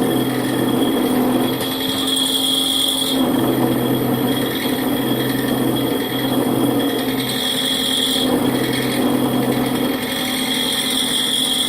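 Holbrook C8 toolroom lathe running with a parting-off tool cutting into a spinning steel bolt blank: a steady machine hum with a high whine that swells and fades several times as the tool is fed in.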